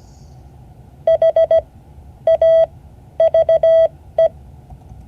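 Morse code played as a beeping single-pitch tone: four letters of short dits and longer dahs, with wide gaps between the letters, spelling H, A, V, E, the word "have".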